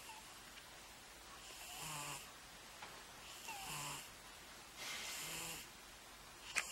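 Domestic cat snoring faintly in its sleep, three snores about a second and a half apart. A sharp click comes near the end.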